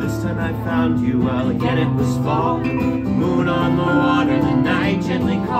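Live acoustic music: a lever harp and an acoustic guitar playing together, with a melody line above them that wavers and bends in pitch.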